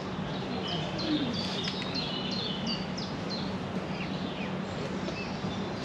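A songbird singing a quick series of short, high chirps, most of them in the first half and fewer after, over a steady low hum and outdoor background noise.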